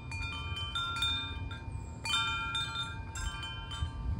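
Wind chimes ringing in storm wind, several pitches struck irregularly and ringing on, with a burst of strikes about two seconds in. Under them is a low rumble of wind.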